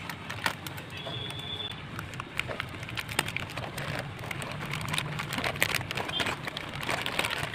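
Thin disposable plastic cups handled and pressed together, giving irregular light clicks and crinkles.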